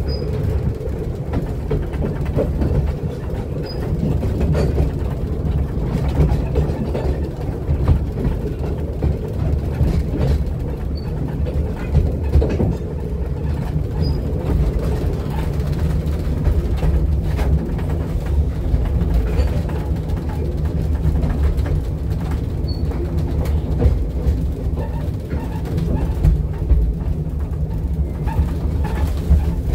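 A 2 ft narrow-gauge railway carriage running along the track, heard from inside: a steady low rumble with irregular clicks and rattles from wheels and rail joints. A few short high-pitched chirps stand out now and then.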